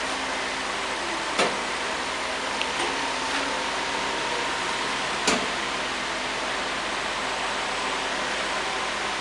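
Heat shrink tunnel with its blower and cooling fan running, a steady rushing noise with a faint hum. Two sharp clicks come through it, about a second and a half in and about five seconds in, with a few lighter ticks between them.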